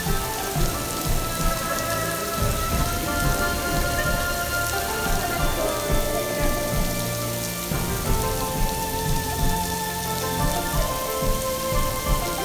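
Steady heavy pouring of the Rain Room's artificial rain falling onto the floor. Soft held musical notes that shift every few seconds sound underneath it.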